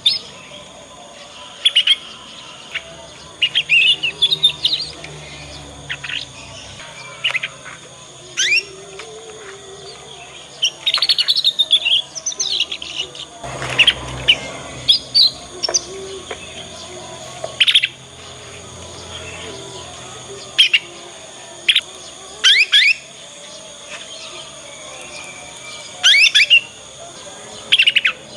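Young domestic canary giving short, sharp chirps and quick twitters in scattered bursts, a second or two apart with some rapid clusters: a juvenile bird practising its song. A brief rustling noise comes about halfway through.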